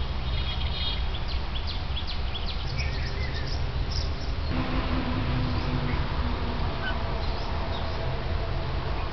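Birds chirping over a steady low rumble. About halfway through, the sound changes abruptly to a steady hum with only a few faint chirps.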